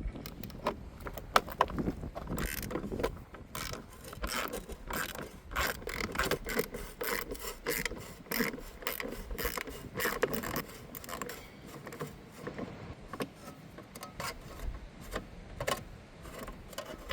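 Socket ratchet clicking in short runs as 8mm bolts holding a license plate are unscrewed.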